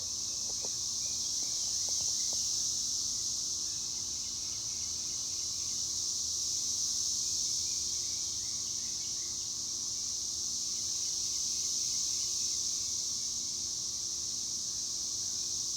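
Cicadas singing in a continuous high, buzzing chorus that slowly swells and eases without a break.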